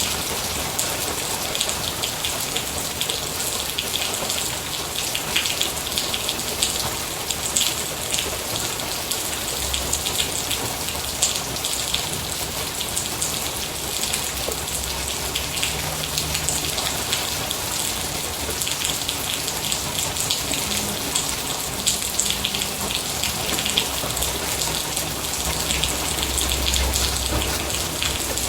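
Steady rain falling, with dense patter of individual drops striking a surface, and a faint low rumble now and then under it.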